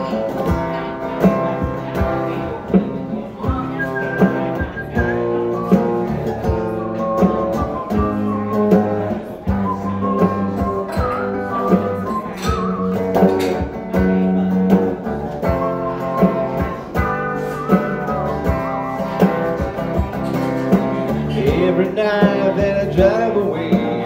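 Electric guitar playing a song's instrumental intro, with a steady beat.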